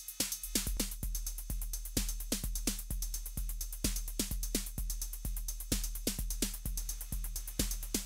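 Roland TR-8 drum machine playing a beat, a steady kick with fast hi-hats, run through a TC Electronic Dark Matter distortion pedal.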